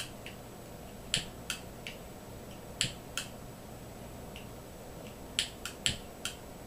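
A cheap flint pipe lighter being struck over and over, about ten sharp clicks in irregular groups. The lighter is failing to light: its owner finds it too temperamental even after changing the flint and refilling it.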